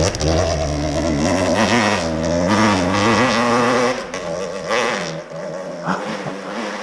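Two-stroke KTM dirt bike engine under throttle on a climb, its pitch wavering up and down. About four seconds in it drops off and runs quieter and lower.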